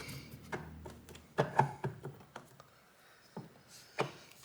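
Scattered light taps and clicks of hoverboard parts being handled on a bench, about half a dozen irregular knocks over a few seconds.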